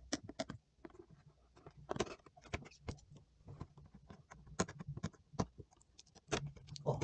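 Fingers handling a glossy cardboard headphone box and working open its end flap: an irregular run of small scratches, taps and crinkles.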